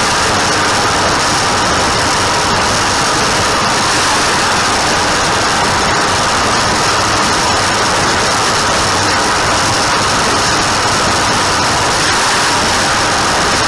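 Tractor engine running steadily under hay-field work.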